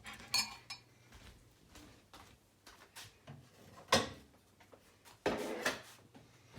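Kitchen handling noises: scattered light clicks and knocks, with one sharp knock about four seconds in and a short burst of noise about a second later, like a drawer or cupboard being opened and closed.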